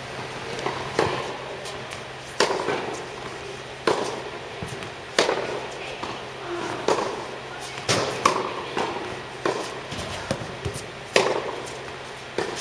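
A tennis rally on an indoor court: rackets strike the ball with a sharp pop every second or so, with smaller ball bounces in between, each echoing in the large hall.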